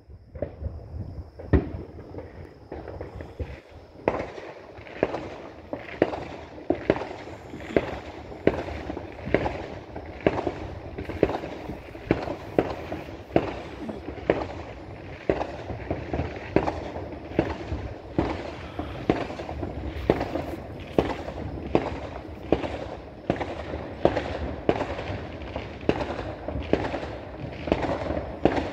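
Fireworks and firecrackers going off in a rapid, near-continuous barrage of bangs and pops, several a second. There are a few separate bangs at first, and the barrage fills in from about four seconds on.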